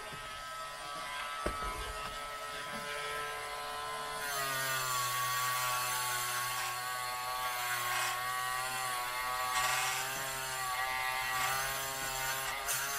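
Dremel rotary tool whining at a steady high speed. About four seconds in, its brush attachment meets the metal battery spring terminal: a scraping hiss joins the whine and the pitch dips slightly under load as it scrubs corrosion off a contact that is barely touching the battery.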